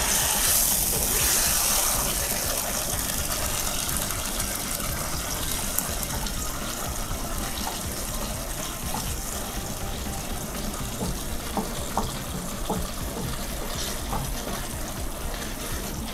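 Sautéed spice paste and tomatoes with freshly added water, sizzling and bubbling in a hot nonstick wok as a wooden spatula stirs them. The hiss is strongest in the first couple of seconds, then settles to a steadier simmer with light scrapes of the spatula.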